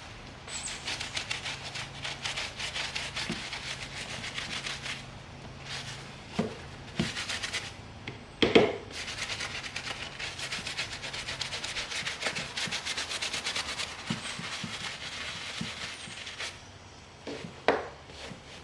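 Fast, steady back-and-forth rubbing and scrubbing on the leather of a baseball glove, in long runs of strokes, as it is cleaned and conditioned. A sharp knock sounds about halfway through, with a few lighter knocks.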